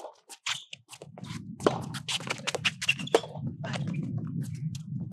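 Soft tennis play on a hard court: scattered sharp clicks and scuffs of ball strikes and players' shoes, over a steady low rumble that starts about a second in.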